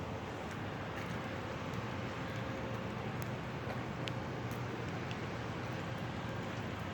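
Steady rain falling, an even hiss with scattered faint drop ticks over a low rumble.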